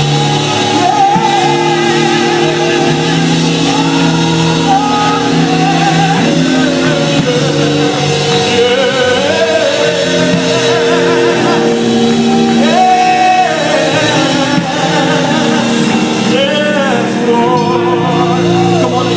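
Gospel singing: a voice holding long notes with wide vibrato and sliding through wordless runs over steady held chords.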